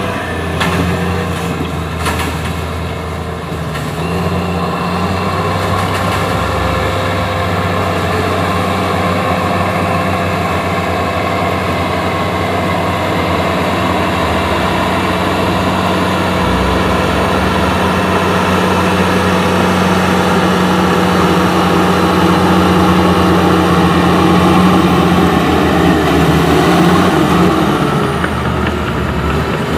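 Crawler bulldozer's diesel engine running steadily as it pushes coal over a stockpile.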